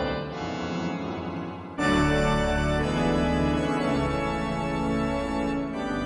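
Organ playing sustained chords: a quieter held passage, then a loud full chord comes in suddenly a little under two seconds in and holds.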